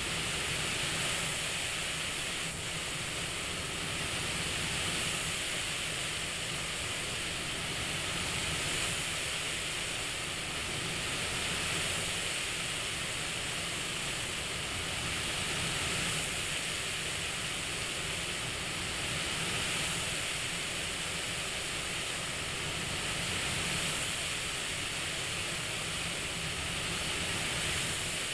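CPAP-style hiss of rushing air, steady and even, swelling gently about every four seconds like slow breaths.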